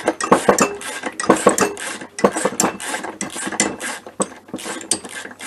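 Ratchet wrench clicking quickly and irregularly with metallic clinks as a cylinder stud is turned into an MBK Booster scooter's aluminium crankcase. The stud does not tighten because the crankcase thread is stripped.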